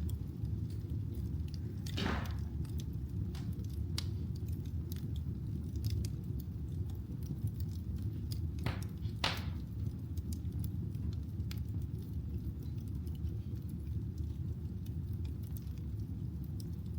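Wood fire burning in a fireplace: a steady low rumble with scattered crackles and pops, and a few short hisses, one about two seconds in and two close together near the middle.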